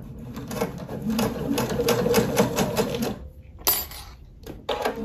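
Domestic sewing machine stitching steadily through the thick quilted layers and binding of an oven mitt, its needle strokes repeating evenly, then stopping about three seconds in. A short scraping sound and a few clicks follow.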